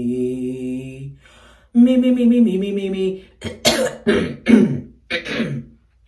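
A woman singing slow held notes in a low morning voice, two short phrases, then coughing and clearing her throat several times in short bursts over the last couple of seconds.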